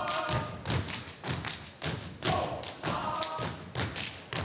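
Stepping: a line of steppers stomping on a wooden stage and slapping their hands in unison, a quick even rhythm of sharp thuds about three or four a second.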